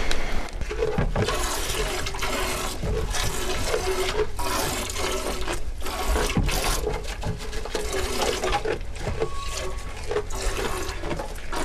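A goat being milked by hand into a stainless steel pail: repeated squirts of milk hitting the metal pail, about one or two a second.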